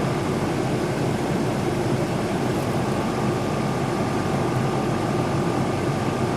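Air conditioner running steadily: a dense, even whir with a low hum and a faint high whine held at one pitch.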